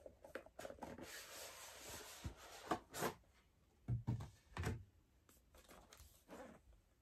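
Cardboard toy box being handled and its inner tray slid out of the outer sleeve. Faint rustling and scraping from about one to three seconds in, then a few soft knocks around four seconds in.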